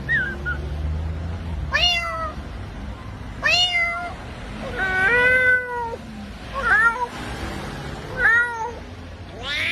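A man imitating a cat's meows: about five separate meows spaced a second or two apart, each rising and then falling in pitch.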